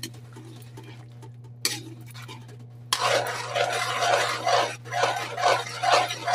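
Metal spatula stirring and scraping thickened sweet and sour sauce and vegetables in a metal wok, starting about three seconds in with scrapes about twice a second. Before that there is only a low steady hum and one light knock.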